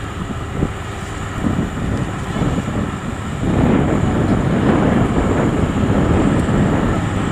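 Tracked rice combine harvester's engine running hard as the machine crawls through deep, sticky mud, growing louder about halfway through.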